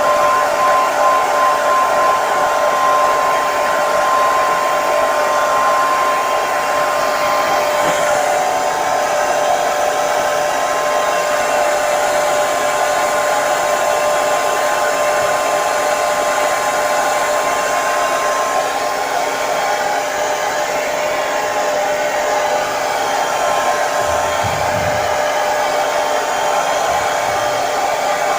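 Electric hair dryer running continuously: a steady rush of air with a motor whine in it. A brief low rumble about three quarters of the way through.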